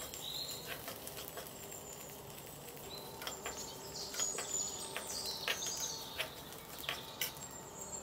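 Metal slotted spatula stirring sago pearls as they roast in ghee in a steel kadai: scattered light clicks and scrapes, busier in the second half. Birds chirp in the background.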